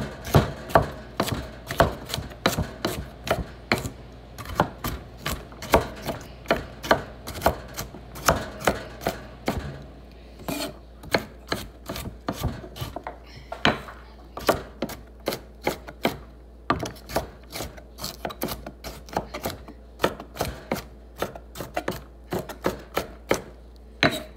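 Knife chopping carrots on a cutting board: a steady run of sharp taps, about two or three a second.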